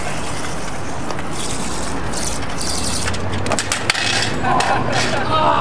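Razor kick scooter rolling on pavement over steady street noise, then a clatter of knocks about three to four seconds in as the scooter and its rider crash onto the street, followed by a short voice near the end.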